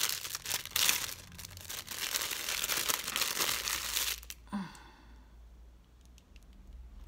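Thin plastic packaging crinkling as a clear bag is pulled off a small silicone mould, then the rustling stops about two-thirds of the way through, leaving only a few faint clicks.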